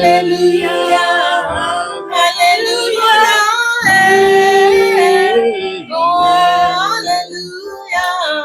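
A woman singing 'hallelujah' over and over in long, held notes that slide between pitches.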